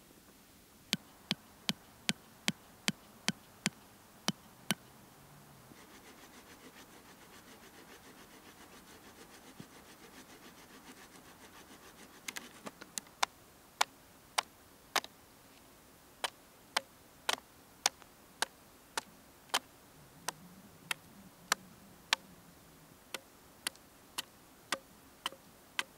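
Sharp chopping strikes of a blade into a wooden pole, about ten quick even blows in the first few seconds, then a longer, somewhat slower run of louder strikes through the second half. Between the two runs, several seconds of steady faint rasping.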